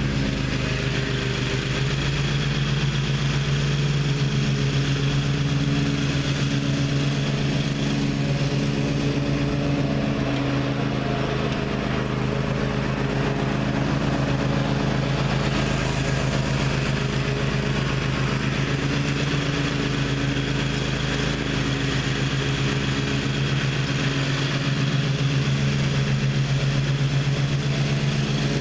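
Gravely ZTX 42 zero-turn mower engine running steadily while mowing and mulching, with the blade deck engaged.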